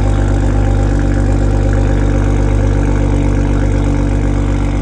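2021 Toyota Supra's turbocharged 3.0 inline-six idling steadily through an HKS cat-back exhaust and Powerneedy catted downpipe, with a deep, even exhaust note.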